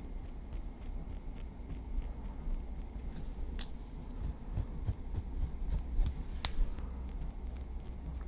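Light tapping of a small wooden stick: a quick, irregular run of crisp little taps and clicks, with two sharper, louder taps, one near the middle and one about two-thirds through, over a low steady hum.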